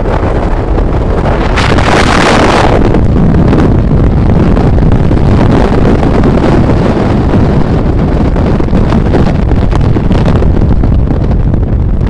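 Gale-force halny, a foehn wind of about 120 km/h, blasting across the camera microphone: a loud, continuous buffeting rumble, with a stronger gust about two seconds in.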